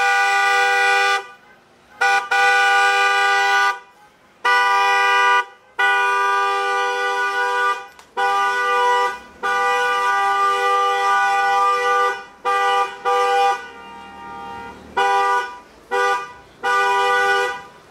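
Car horn honking in a run of about ten blasts, most a second or two long with short gaps between, the longest about two and a half seconds near the middle; two close notes sound together.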